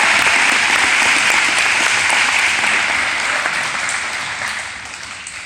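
A large audience applauding, the clapping loud at first and dying away over the last couple of seconds.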